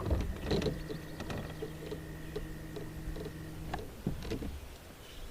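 Fishing reel being cranked: a few clicks, then a steady low whir with faint ticks about three a second for about three seconds, stopping suddenly.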